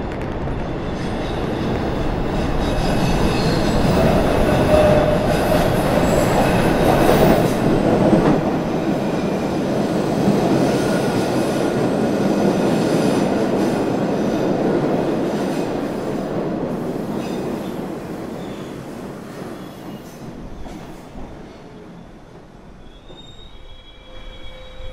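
Older MBTA Orange Line subway train pulling into an underground station, its wheels squealing on the rails. The running noise builds to a loud peak a few seconds in, then fades as the train slows to a stop.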